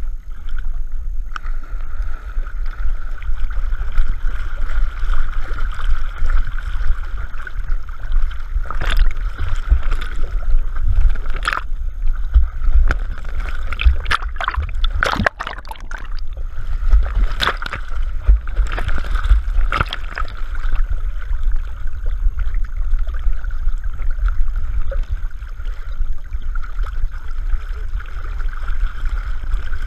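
Lake water sloshing and gurgling around a GoPro camera housing strapped to a Bernese mountain dog's back as she moves through the water. A heavy, muffled rumble of water runs throughout, with a string of sharp splashes and knocks against the housing in the middle.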